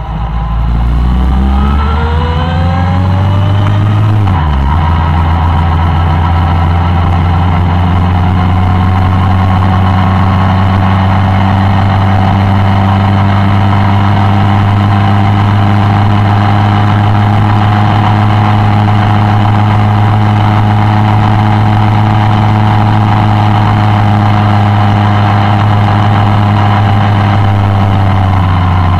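Suzuki Bandit 1200's inline-four engine heard from on board while riding. It rises in pitch as it accelerates over the first few seconds and dips briefly about four seconds in. It then holds a steady drone at cruising speed and eases off near the end.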